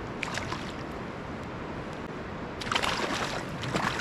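Steady rush of river water, with splashing about half a second in and again, louder, from about three seconds in, as a hooked coho salmon thrashes in the shallows while being handled for release without a net.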